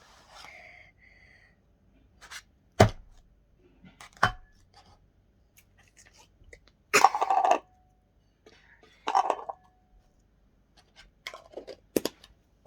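Hands handling slime-kit containers and packaging: a few sharp knocks and clicks, with two short rustling bursts around the middle.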